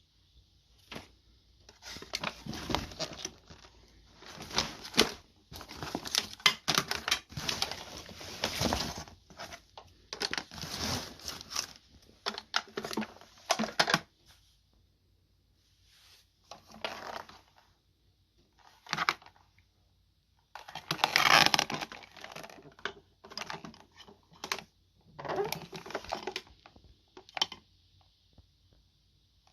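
Handling noise: irregular clicks, clatter and rustling in bursts, with quiet pauses between them. The vacuum motor is not running.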